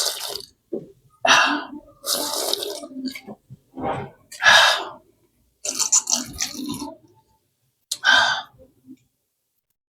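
Close-miked eating sounds: a string of short, irregular bursts of wet chewing and sucking.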